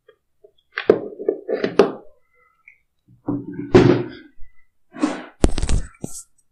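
Several dull knocks and thumps in three short clusters, the last with a brief loud rush of noise about five and a half seconds in.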